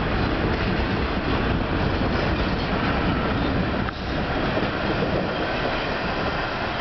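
Bombardier R62A subway train on the (7) line pulling out of an elevated station, running along the tracks with a steady rolling noise that eases off a little near the end as it draws away.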